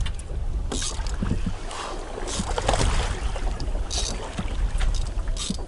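Wind rumbling on the microphone aboard a small boat on choppy sea, with short hissing splashes of water about every second and a half.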